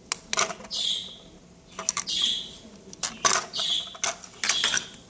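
Plastic Lego pieces clicking and clattering as they are handled and set down, in about six short bursts, each with a brief scraping rustle.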